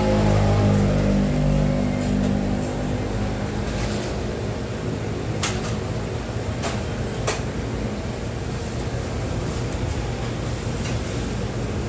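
Steady low mechanical hum of a busy street-food stall kitchen, with a deeper pitched drone that fades over the first few seconds. A few sharp clinks of utensils and bowls about four to seven seconds in.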